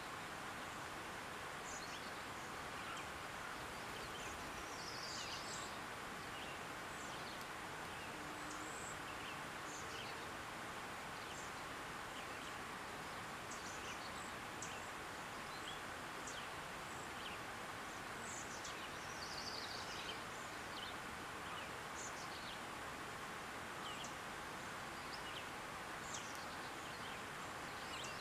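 Quiet open-air ambience: a steady background hiss with faint, scattered short bird chirps and calls throughout.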